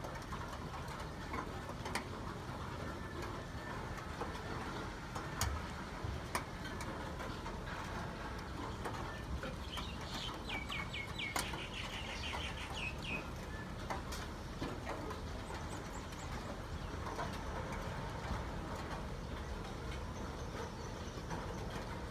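Steady outdoor background hiss with scattered sharp ticks, and a bird calling a rapid run of about a dozen high chirps near the middle.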